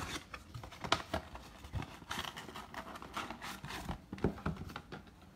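Hands opening cardboard trading-card boxes and pulling out the wrapped card packs: a busy run of irregular rustles, crinkles and small knocks.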